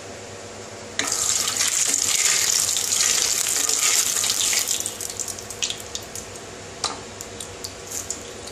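Hot mustard oil in a wok sizzling as a wooden spatula is stirred through it, while the oil is heated for deep-frying. A loud hiss starts suddenly about a second in, then dies down to scattered crackles and pops.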